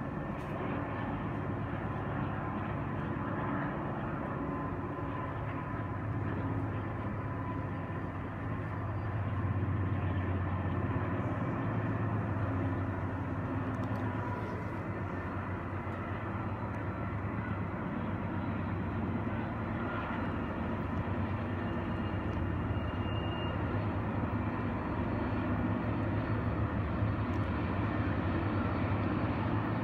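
Distant diesel-hauled freight train running steadily: a low engine rumble with a steady hum, growing slightly louder about nine seconds in.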